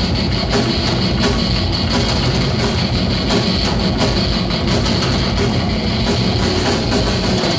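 Metal band playing live: electric guitar, bass and drum kit, loud and steady.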